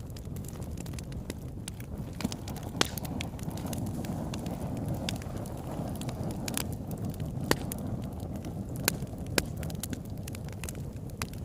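Wood campfire burning with a steady low rush and scattered sharp crackles and pops, a few louder snaps standing out.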